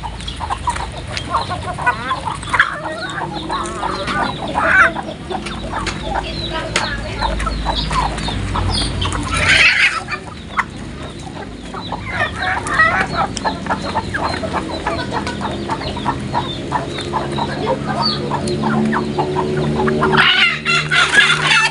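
A flock of free-range village chickens (ayam kampung) clucking as they feed, with many short overlapping calls and one louder burst about halfway through.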